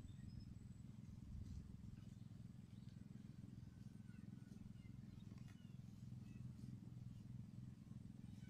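Near silence: a low steady hum, with a few faint, short bird chirps scattered through it.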